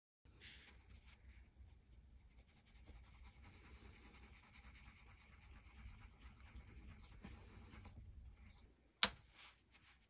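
A swab scrubbing ketchup over a copper 10-yen coin in a small metal dish: a faint, steady scratchy rubbing. About nine seconds in, a single sharp click.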